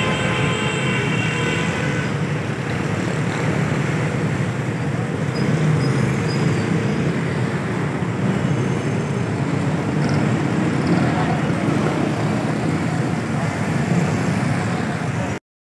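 Steady road traffic noise, a low rumble of passing vehicles and engines, with a short high-pitched tone in the first couple of seconds. The sound cuts out for a moment just before the end.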